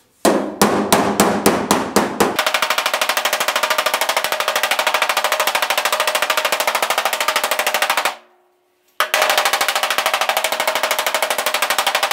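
Slapper tool slapping the sheet-metal door skin of a 1967 Pontiac GTO, which is held up from inside by an inflated inner tube and a curved 2x6, to smooth out a dent. A few separate slaps, then a fast, even run of slaps, a short pause about eight seconds in, then fast slapping again.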